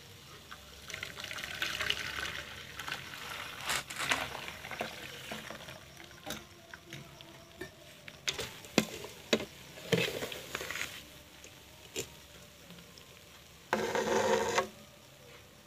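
Milk poured from a steel mug through a small metal strainer into a steel milk can, with several sharp clinks of metal on metal. Near the end the mug is dipped into a large steel pot of milk: a short, louder splash lasting about a second.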